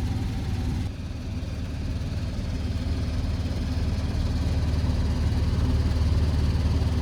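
Goodman gas furnace blower fan running with a steady low hum, dipping slightly about a second in. No heat is being made: the furnace's flame rollout limit switch has tripped.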